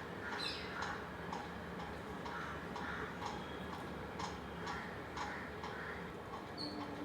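Light, even ticking about twice a second, like a clock ticking, with one short high chirp near the end.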